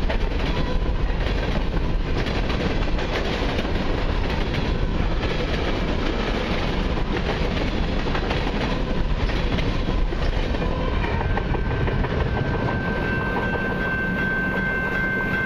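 Freight cars of a long train rolling past, wheels clacking over rail joints over a steady rumble. A steady high-pitched squeal joins about three quarters of the way through and grows louder as the last cars pass.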